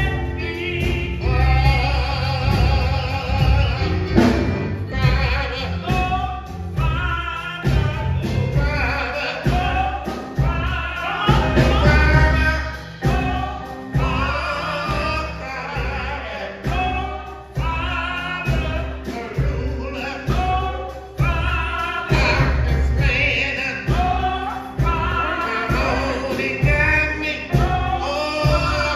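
Live gospel music: voices singing over instrumental backing with heavy bass and a steady beat.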